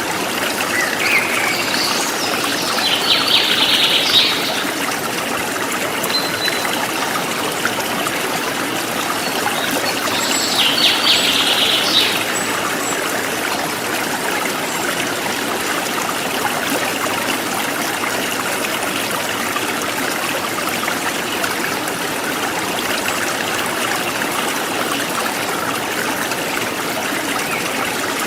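A forest stream flowing steadily, with birds calling over it: a short rising call about a second in, then two rapid trilling calls around three and eleven seconds in.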